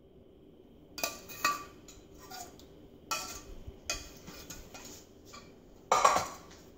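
A metal spoon clinking and scraping against a stainless steel saucepan as sauce is spooned out, several separate clinks a second or so apart, with the loudest clank near the end.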